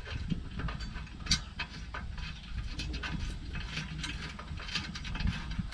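Small irregular metal clicks and ticks as a bolt with a washer is turned by hand and threaded into the catalytic converter's exhaust flange.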